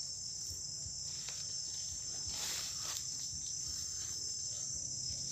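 Steady high-pitched chorus of night insects trilling in the forest, with a brief rustling noise about two and a half seconds in.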